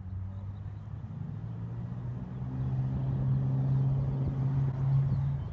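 Low, steady engine hum of a motor vehicle in road traffic, growing louder about halfway through.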